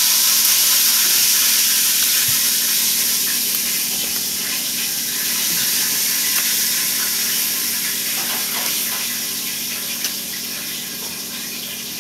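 A loud, steady rushing noise that swells just before and slowly eases off, with a faint steady hum beneath it.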